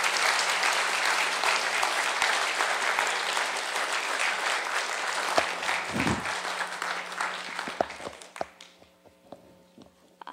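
Audience applauding: many hands clapping in a dense, steady patter that thins to a few last claps and dies away about eight or nine seconds in.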